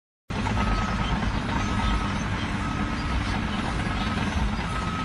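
A heavy vehicle's engine running with a steady rumble, starting abruptly just after the start, with a short high beep repeating about once a second like a reversing alarm.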